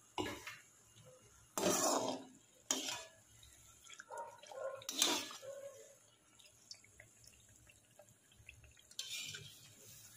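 A perforated steel spatula clattering and scraping against a steel wok of hot frying oil in five or six short bursts, as malpua are turned and lifted out.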